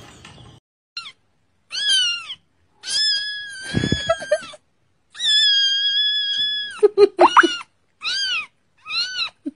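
A young kitten mewing over and over in high-pitched cries: several short, arching mews and two long drawn-out ones. A low bump is heard about four seconds in.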